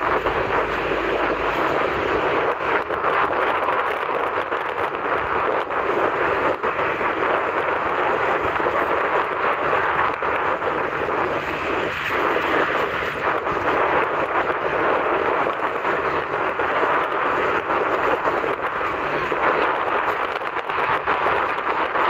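Steady, even rush of sea surf, with no single wave breaks standing out.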